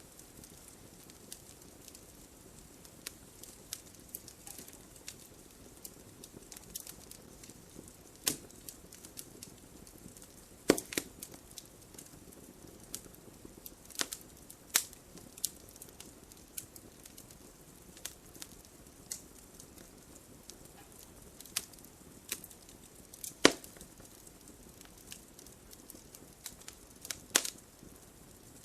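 Wood fire burning in a fireplace: a low, steady flame hiss under irregular crackles and sharp pops from the burning logs, the loudest pops a little over a third of the way in and near the end.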